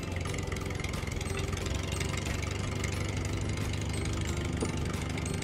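Tractor engine sound effect running steadily at idle, an even low hum with no change in speed.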